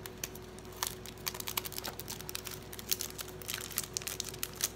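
Thin clear plastic sleeve crinkling and crackling as fingers pick at it and pull it open: a quick, irregular patter of small clicks that thickens after about a second.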